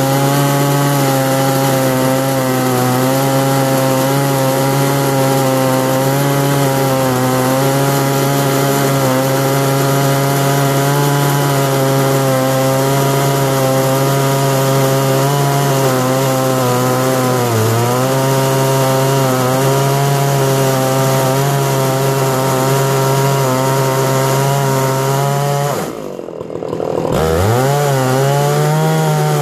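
Stihl MS660 two-stroke chainsaw cutting through a redgum barrel-top slab, running steadily at full throttle under load. The engine pitch dips briefly partway through, and near the end the revs drop sharply before climbing back up to cutting speed.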